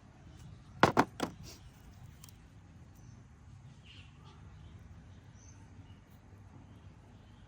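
Three quick sharp knocks close together about a second in, over low steady outdoor background noise, with a faint bird chirp a few seconds later.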